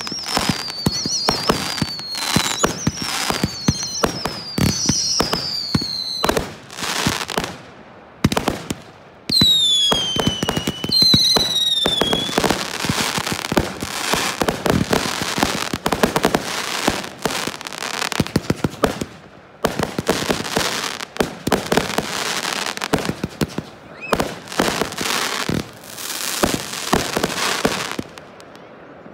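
Aerial fireworks display: rapid booms and dense crackling throughout, with a string of falling whistles in the first few seconds and two more about ten seconds in.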